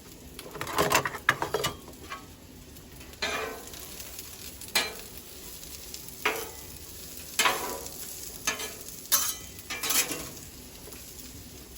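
Onions and bell peppers sizzling in olive oil on a hot Blackstone flat-top griddle. A metal spatula scrapes and knocks on the griddle top as they are stirred, in short strokes every second or so, loudest about a second in.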